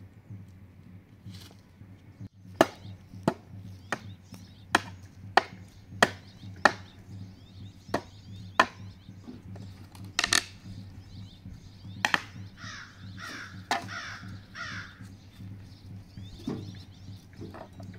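A hand hatchet striking the wooden slats of a pallet, breaking it up: a run of about ten sharp chopping blows in quick succession, then a few more spaced out.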